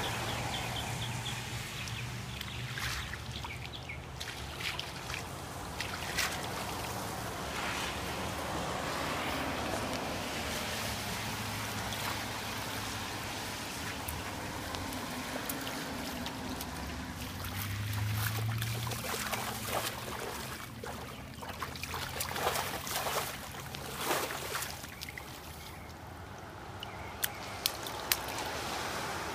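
Shallow rainwater puddle splashing and trickling as a crawling baby's hands slap and paddle the water, with many short splats, busiest in the second half.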